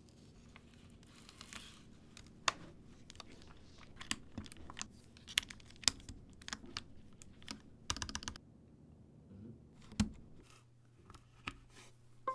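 Keys being pressed on a Mode SixtyFive 65% custom mechanical keyboard: irregular, scattered keystrokes, with a quick run of several strokes about eight seconds in.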